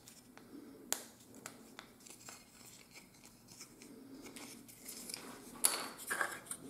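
Mostly quiet, with a few faint clicks, then near the end a short flurry of light scraping and tapping as hands pick up and handle a thin laser-cut plywood kit part.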